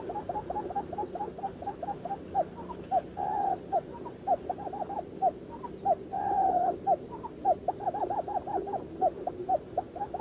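Barred buttonquail calls: a rapid run of short notes, each dropping in pitch, several a second, with two longer drawn-out notes about three and six seconds in.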